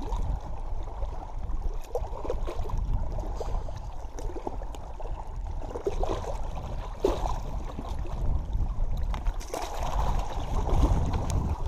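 Wind buffeting the microphone over small waves lapping on shoreline rocks, with handling knocks. A burst of splashing about ten seconds in as a largemouth bass is released into the water.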